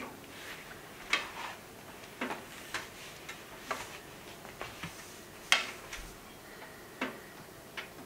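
Firewood crackling and popping inside a closed wood-burning stove: sharp, irregular pops about once a second, the loudest about five and a half seconds in.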